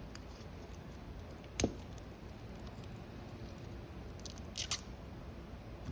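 Small clicks from a wristwatch being handled: one sharp click about a second and a half in, then a few faint light clicks near the end, over a low steady hum.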